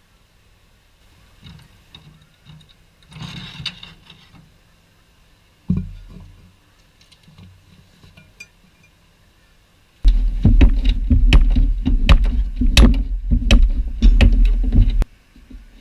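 Light metal clinks and a single knock, then about five seconds of loud, rapid metal-on-metal hammering that stops suddenly: tool work to free seized parts of the VW bus's rear torsion arm and its rubber bushing.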